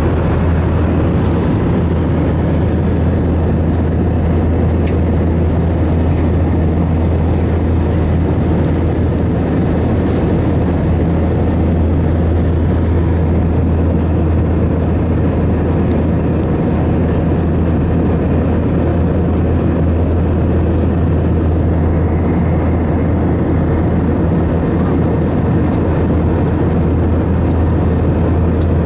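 Airbus A321 jet engines and airflow heard inside the passenger cabin beside the wing during the climb after takeoff: a loud, steady rushing noise with a constant low hum underneath.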